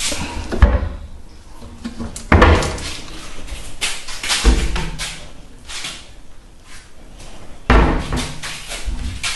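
Kitchen cabinet doors being opened and shut, a string of knocks and bangs, the loudest about two seconds in and again near the end.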